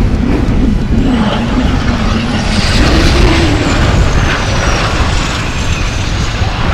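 Diesel racing truck's engine running hard as it drives past, its note wavering and then rising about three seconds in, with a thin high whine that slowly falls in pitch.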